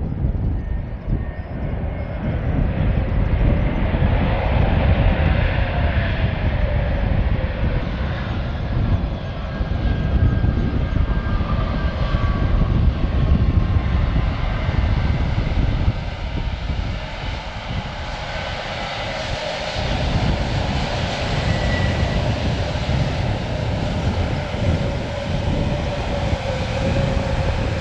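Airbus A321neo airliner landing and rolling out on the runway: its twin turbofan engines make a steady loud rumble, with thin engine whines sliding down in pitch.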